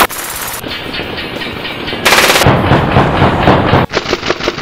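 Tokyo Marui M4A1 MWS gas blowback airsoft rifle firing in rapid bursts, the bolt cycling with each shot in a fast clatter; a loud burst at the start and another about two seconds in.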